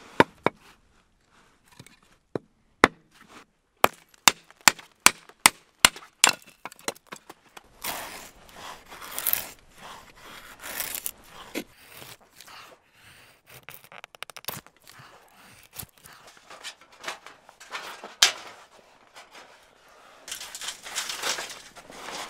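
Hatchet splitting kindling on a wooden chopping stump: a few sharp wooden knocks, then a quick even run of about seven strikes. After that comes the rasping scrape of a knife shaving feather-stick curls from dry wood, and near the end more rasping as twigs are handled.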